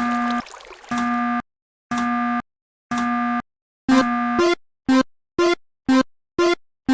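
Synthesized railroad-crossing warning tones beeping evenly, about one half-second beep a second. About four seconds in they change to shorter, brighter dings at about two a second.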